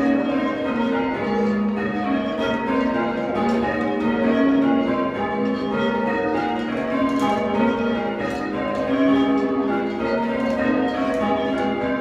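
A ring of six church bells, cast in 1789 by Robert Dalton, being rung in changes: a continuous, even stream of strikes, each bell's tone ringing on under the next, soft in tone when heard together.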